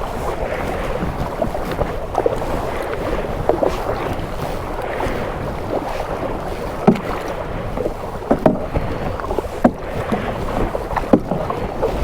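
Kayak paddling: paddle blades dipping and splashing in the water, with wind buffeting the microphone. A few sharper splashes or knocks come in the second half.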